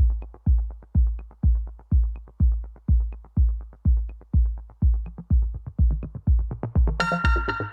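Electronic music with a steady deep kick-drum beat, about two beats a second; a bright synthesizer chord comes in near the end.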